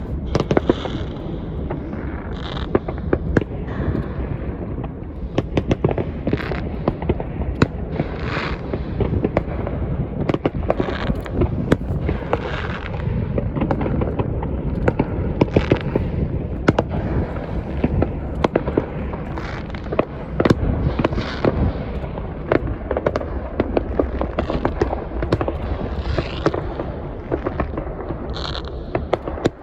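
Fireworks going off without a break: many sharp bangs and pops over a steady low rumble, with short bursts of crackle and hiss every second or two.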